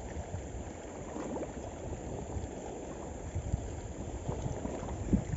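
Seawater lapping and washing against shore rocks, an irregular low splashing over a steady wash, with wind rumbling on the microphone.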